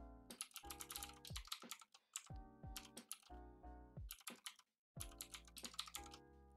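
Computer keyboard keys typed in quick runs over soft background music; everything drops out briefly about four and a half seconds in.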